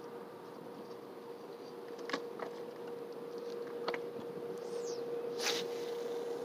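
Fishing rod cast: a short swish about five and a half seconds in as the rod swings overhead, after a few light clicks, over a steady hum and background noise.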